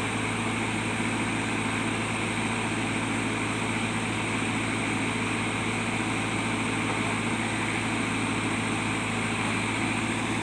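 JCB backhoe loader's diesel engine running steadily at an even speed, with a constant low hum and no revving.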